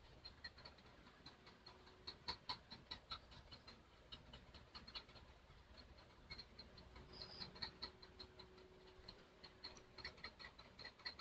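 Near silence: faint room tone with scattered light ticks and clicks.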